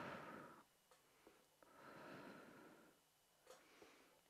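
Faint, slow breathing picked up close to a headset microphone: long breaths that swell and fade about every two seconds, with a few soft clicks between them.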